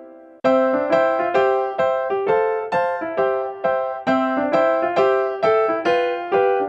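Background piano music: a fading chord, then from about half a second in a simple melody of evenly struck notes, about four a second.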